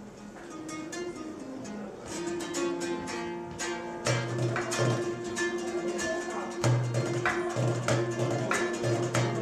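Live duo music: a long-necked lute plucked and strummed in a quick rhythm, joined about four seconds in by a hand frame drum playing deep bass strokes and sharp rim taps.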